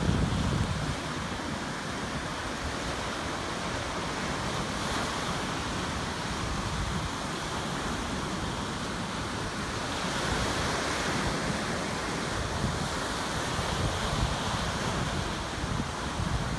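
Ocean surf breaking and washing in, a rushing hiss that swells louder about ten seconds in, with wind buffeting the microphone in low rumbles.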